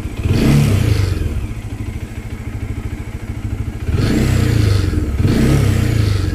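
Bajaj Dominar 400 single-cylinder engine idling and blipped with the throttle three times, with a rattling buzz on each rev from a loose part shaking against the bike: the vibration noise that shows up when the throttle is opened.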